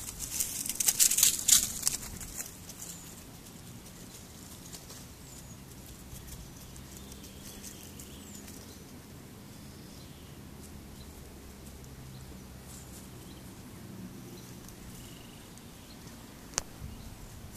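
Dry rustling and crackling for about a second and a half, starting half a second in. Then a quiet outdoor background with faint scattered rustles and a single sharp click near the end.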